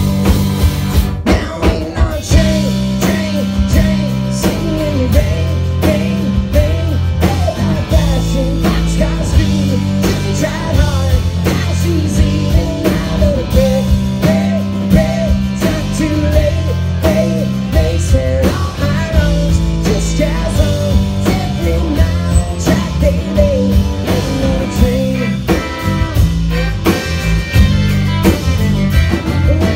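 Live band playing a country-rock song: electric and acoustic guitars, bass and drum kit, with a fiddle and a wavering lead melody line over a steady beat.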